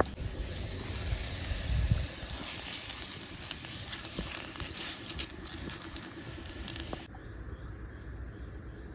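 Wet bok choy rustling and dripping as it is handled and laid into a metal pot, with scattered small clicks; about seven seconds in it gives way to quieter outdoor background.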